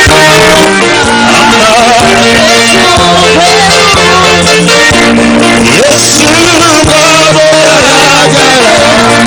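Loud music with a singing voice over held bass notes; the voice's pitch wavers and slides.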